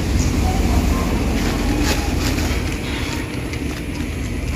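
Steady low outdoor rumble with a few soft rustles and clicks about two seconds in.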